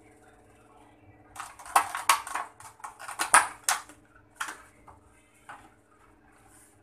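Clear plastic food pack crackling and clicking as it is handled, with a dense run of crackles lasting about two and a half seconds and then a few single clicks, over a faint steady low hum.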